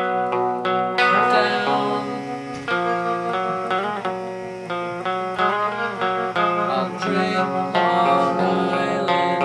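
Music: a song's instrumental passage led by guitar, with no sung words.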